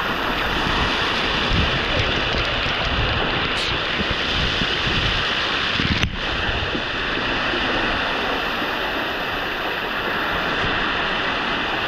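Hot-spring water pouring and splashing over rock, a steady, loud rushing hiss, with one sharp knock about six seconds in.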